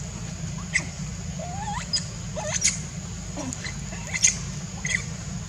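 Scattered short, squeaky animal calls, several gliding upward in pitch, with a few sharp chirps in between.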